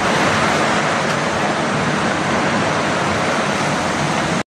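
Storm wind and driving rain: a steady, loud rushing hiss that cuts off suddenly near the end.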